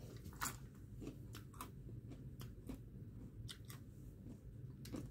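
Someone chewing crunchy snack chips: faint, irregular crunches over a low steady room hum.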